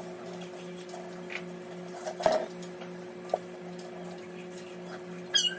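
A steady machine hum with a regular pulsing beat several times a second, and a single sharp knock a little over two seconds in.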